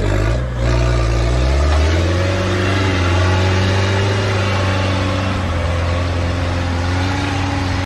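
Lifted off-road pickup's engine working under throttle as it climbs a snowy slope: the revs rise about two seconds in, then it runs steadily, easing off slightly near the end.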